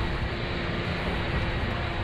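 A 4x4 driving down a steep mountain road in low-range four-wheel drive, its engine braking the descent: a steady engine and road rumble with a faint steady whine.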